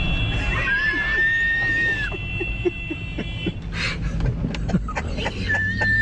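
Car horn sounding one long steady blast that stops about three and a half seconds in, set off by the driver braking because the horn has been wired to the brake pedal. A high wavering squeal rises over it about a second in. Engine and road rumble from inside the following car runs beneath.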